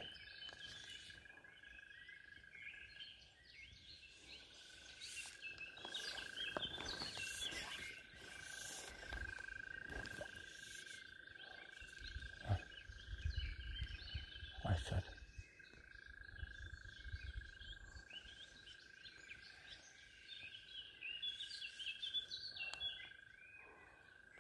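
Quiet outdoor ambience: scattered high chirps of small animals over a steady thin high tone, with a few soft knocks and a low rumble in the middle.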